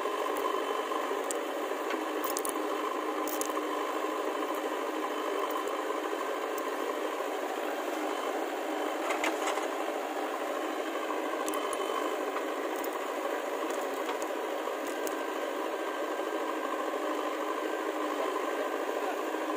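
Diesel engine of a JCB 3DX backhoe loader running steadily under work as it digs and loads soil, sounding thin with little low end. Scattered clicks and rattles come through over it.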